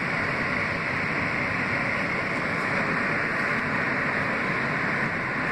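Steady rushing running noise of an R160B subway car moving along the track, heard from inside the car: wheel-on-rail and air noise at an even level throughout.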